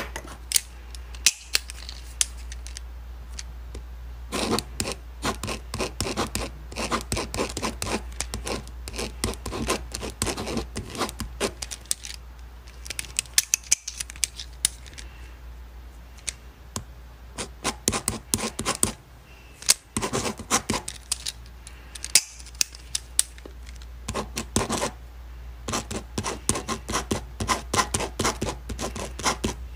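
Pen writing on paper: quick, scratchy strokes in bursts with short pauses between them, over a steady low hum.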